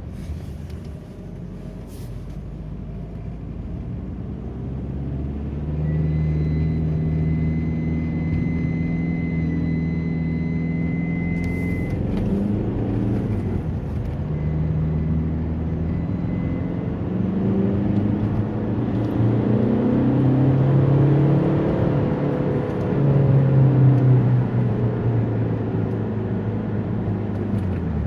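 Alfa Romeo 147's engine running under very gentle acceleration, its note rising and falling, with a strange high, steady whistle for about six seconds in the middle that then fades away.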